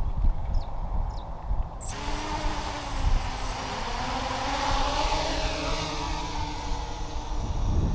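FPV racing quadcopter's electric motors whining, coming in suddenly about two seconds in, with a pitch that shifts up and down as the throttle changes. Wind rumbles on the microphone throughout.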